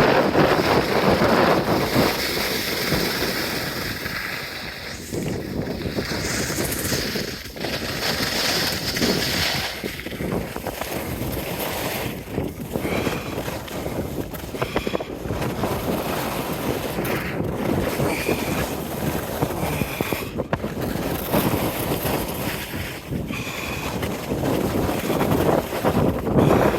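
Wind buffeting the microphone, a steady rushing noise that rises and falls.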